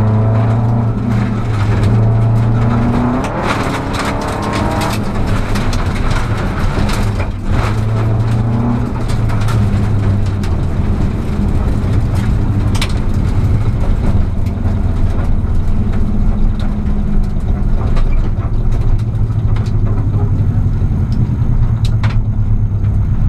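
Rally car's engine heard from inside the cabin, driving hard along a gravel road: revs climb through the gears, dip briefly about seven seconds in, then the engine runs on steadily. Scattered sharp clicks and knocks from the gravel and car body sound over it.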